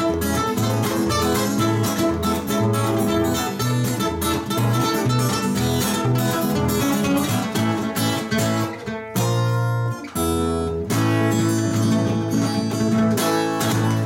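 Two acoustic guitars playing together in the closing bars of a song, a busy strummed and picked rhythm. About nine seconds in, two chords are held and ring out briefly, then the strumming resumes and stops at the end.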